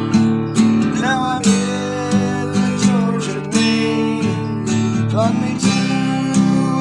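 Acoustic guitar strumming a country tune in a steady rhythm, under a melody line that slides up into its notes.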